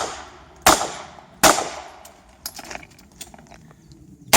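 Smith & Wesson 929 revolver firing single shots: one at the start, then two more about three-quarters of a second apart, each with an echoing tail. After that come a few faint knocks, and one more shot right at the end.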